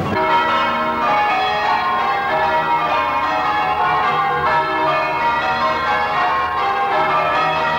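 Tower bells of St Peter's Church being change-rung: a peal of church bells struck one after another in quick succession, their ringing tones overlapping.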